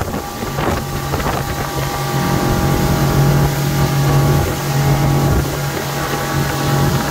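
Outboard motor on a Hurricane 217 deck boat running steadily at planing speed, a steady engine drone over the rush of water, with some wind buffeting the microphone.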